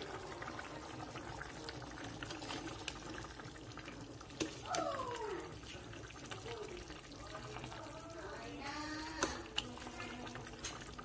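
Pork and taro-leaf curry boiling hard in an aluminium pan, with steady bubbling and a metal ladle clicking against the pan as it is stirred. A short falling voice-like call is heard about halfway through.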